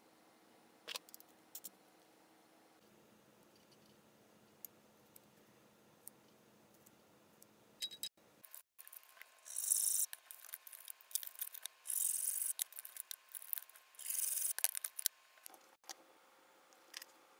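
A few light clicks of small metal parts being handled, then, about halfway in, rough rasping strokes of a hand tool working metal, in three main stretches of about a second each.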